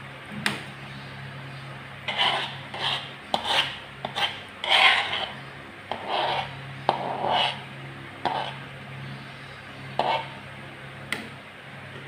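Metal spatula scraping and clinking against a metal wok as coconut-milk curry is stirred. The scrapes come in a run in the middle, with single clinks about half a second in and near the end, over a low steady hum.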